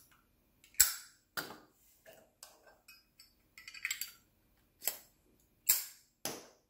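Metal Zippo-style lighter case and insert clicking and clinking as the insert is pulled out of one case and pushed into another: about half a dozen sharp clicks with small rattles between them, the loudest about a second in and again near the end.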